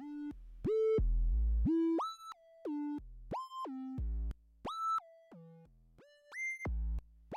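Roland System-1m synthesizer in unison mode playing a sequenced line of short notes, each sliding into its pitch with portamento. The notes vary in velocity, which makes the envelopes click and pop at the note starts.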